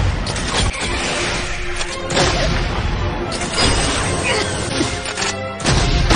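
Music under animated fight sound effects: crashing hits, one about two seconds in and another near the end, over a dense continuous mix.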